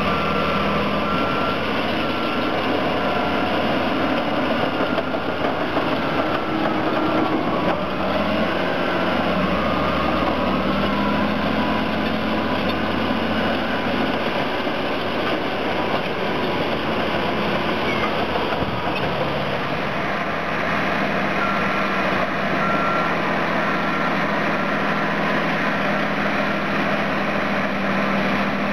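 Caterpillar D10 bulldozer's twin-stack diesel engine running hard under load as it pushes a pile of dirt, its pitch shifting a little partway through. A reversing beeper pips steadily for the first few seconds and again near the end.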